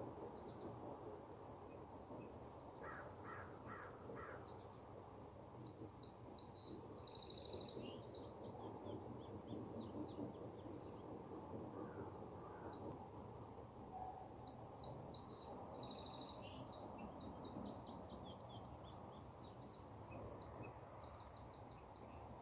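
Faint outdoor ambience: songbirds give several high trills of a few seconds each, short rapid chirp runs and scattered chirps over a steady low background rumble.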